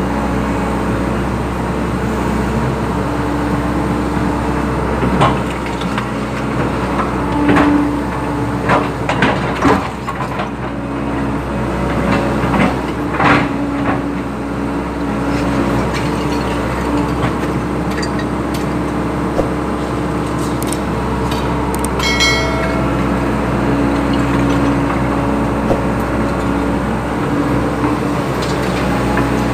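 Hydraulic excavator's diesel engine running steadily while it works, with several knocks and clanks of the bucket and soil in the first half and a brief metallic squeal about two-thirds of the way through.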